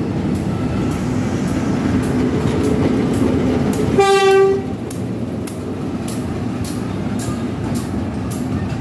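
PNR diesel-electric locomotive 921 running past close by, its diesel engine rumbling steadily and its wheels clicking over the rail joints. A short horn blast sounds about four seconds in, the loudest moment.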